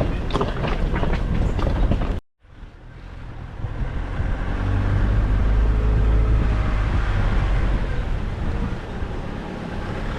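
Nissan Navara D40 ute driving off-road: a steady low engine and road rumble. It cuts out abruptly about two seconds in, then fades back up and holds steady.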